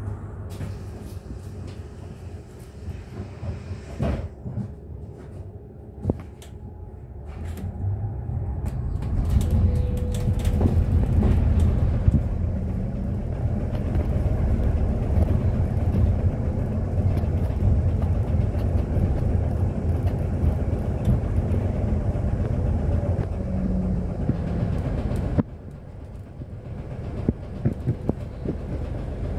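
Interior of an Alexander Dennis Enviro400H hybrid double-decker bus on the move: quieter at first, then the drivetrain and road rumble grow louder about eight seconds in as the bus pulls away, running steadily with rattles and clicks before dropping suddenly near the end.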